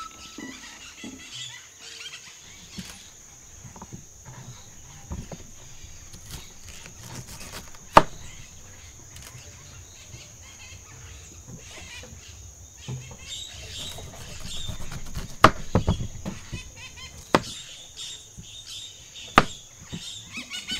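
Rural outdoor ambience: a steady high-pitched insect drone with faint bird chirps. Several sharp knocks or taps come through it, one loud knock about eight seconds in and a cluster of them in the last third.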